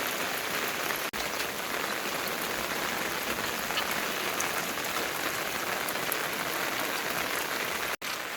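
Steady rainfall, an even hiss that cuts out for an instant about a second in and again near the end.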